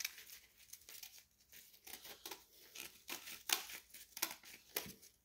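Scissors cutting through a sheet of paper folded in half, a run of short, irregular snips with the rustle of the paper being turned.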